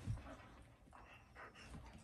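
A golden retriever puppy and a big Malamute play-fighting on a bed: quiet scuffling with a thump at the start and a few brief dog noises.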